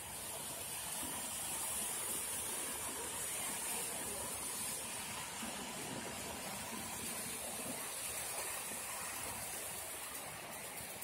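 Continuous conveyor crayfish fryer at work, its hot oil sizzling in a steady hiss.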